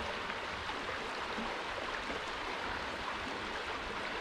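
Steady rushing of flowing water, like a creek running over rocks.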